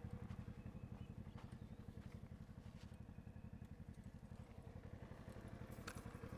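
Side-by-side UTV's engine running at low revs, a faint low rumble with a steady fast pulse.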